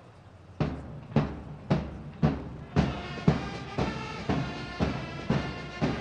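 Marching music: a bass drum starts beating about half a second in, at a steady two beats a second, and the band's melody joins in with held notes about three seconds in.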